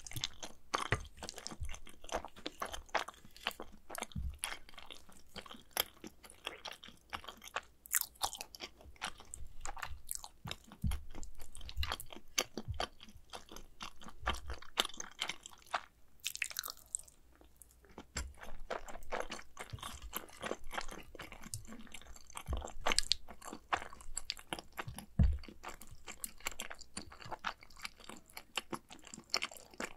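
Close-miked chewing of mac and cheese: a steady run of wet, crisp mouth clicks and small crunches, with an occasional soft low thump.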